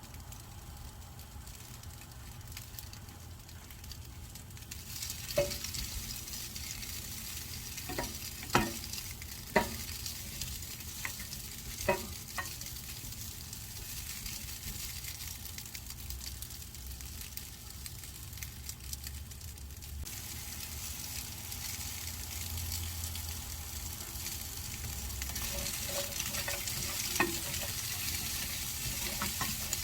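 Vienna sausages and vegetables sizzling in a frying pan as they are stir-fried, with a few sharp clicks of the utensil against the pan. The sizzle grows louder about five seconds in and again near the end.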